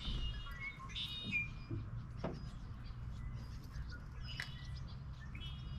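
Small birds chirping, a cluster of short high calls in the first second or so and a few more about four and a half seconds in and near the end, over a low steady background hum.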